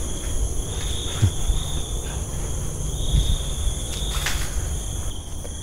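Crickets and other insects chirring steadily at several high pitches, over a low rumble, with a faint click about four seconds in.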